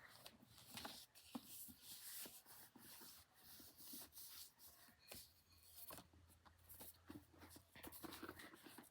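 Quiet, irregular tapping and scratching of fingers on a book, a woody-sounding knock.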